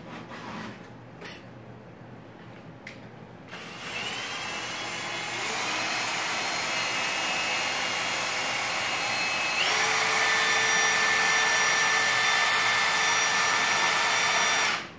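Cordless drill driving a drill winch on a shop crane, its motor and the winch gears whining as the cable winds. The whine starts about four seconds in after a few light clicks, rises a little, then jumps higher and louder near ten seconds, and cuts off abruptly just before the end.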